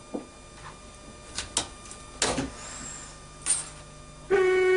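Scattered sharp clicks and knocks from handling the Docklands Light Railway train's coupler equipment. About four seconds in comes a loud, steady pitched tone lasting well under a second.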